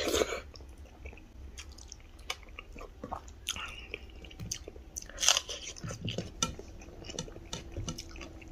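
Close eating sounds: a mouthful of rice and dal taken by hand at the start, then chewing with scattered small clicks.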